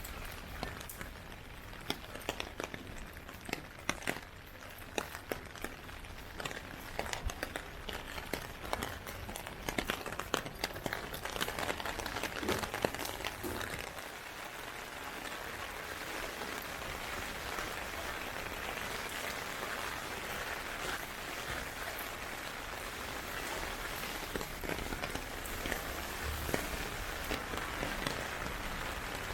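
Heavy typhoon rain falling, with many sharp individual drop hits through the first half, settling into a steadier, denser hiss of rain from about halfway.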